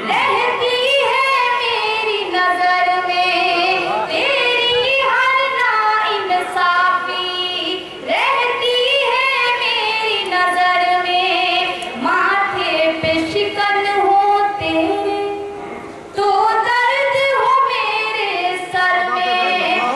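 A woman singing an Urdu ghazal in tarannum style, in long melodic phrases with held, wavering notes, each phrase about four seconds long.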